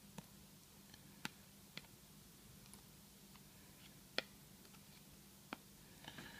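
Near silence with a faint steady low hum and about five faint, sharp clicks, from a container and moist shisha tobacco being handled over a clay hookah bowl as the bowl is filled.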